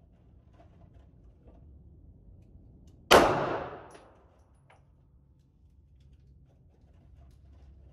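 A single handgun shot, a sharp crack about three seconds in whose echo rings and fades over about a second in the enclosed range, followed by a faint click.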